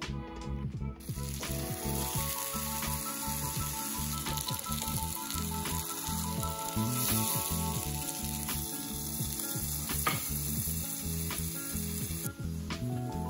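Butter and egg-soaked bread slices sizzling as they fry in a pan, a steady crackling hiss, over background music.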